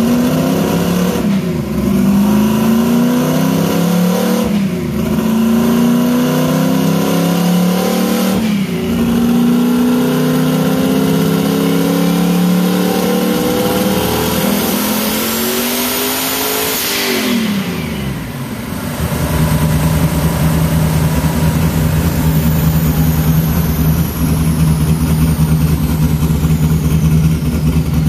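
Turbocharged drag-car engine making a full pull through the gears on a chassis dyno: revs climb and drop at three quick upshifts, then climb through one long final pull with a rising turbo whistle near the top. The driver lets off, and the engine settles to a steady idle for the last nine seconds or so.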